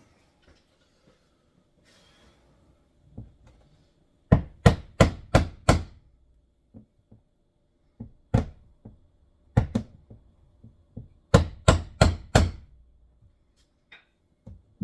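Hammer striking a block of wood to flatten lifted roof sheet metal around a car's antenna mount: sharp blows in quick runs of about three to five, with pauses and a few lighter taps between.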